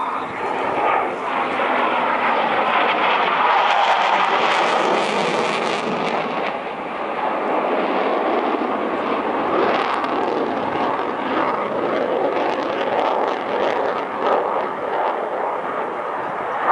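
Eurofighter Typhoon's twin Eurojet EJ200 turbofans in a loud, continuous rush of jet noise as the fighter flies past, turning harsher and crackling about four to six seconds in.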